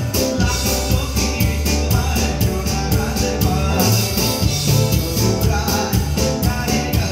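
Live band playing: drum kit, electric bass, electric guitar and keyboard, with a man singing at the mic. The drums keep a steady beat under a heavy bass line.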